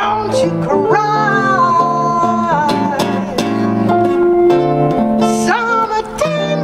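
Live small-band pop-jazz music: a woman singing into a microphone over acoustic and electric guitar, with long held vocal notes, one about a second in and another near the end.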